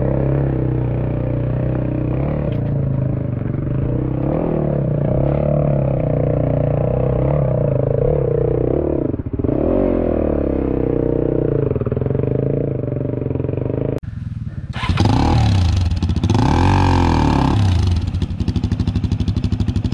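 Husqvarna TE250 two-stroke dirt bike engine running on the trail, its revs rising and falling with the throttle. About two-thirds of the way through it briefly drops off, then revs harder and louder.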